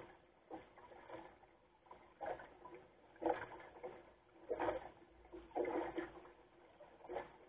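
Small lake waves slapping and splashing against the hull of a Goat Island Skiff sailing dinghy under way, in irregular splashes about once a second.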